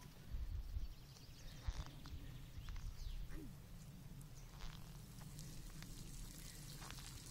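Faint outdoor ambience: a low steady rumble with scattered small clicks and a few faint short calls, one a quick falling chirp about three seconds in.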